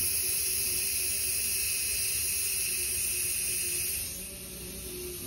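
Air hissing out of a dirt bike rear tire's valve stem as the tire is deflated. The hiss is steady, then grows quieter about four seconds in.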